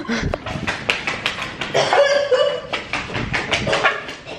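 Women's wordless cries and yelps as they react to a shot of liquor, over clicks and rubbing from the phone being handled right against the microphone.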